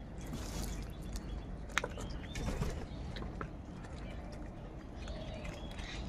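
A flock of house crows feeding: a few faint, short calls and scattered sharp taps over steady low background noise.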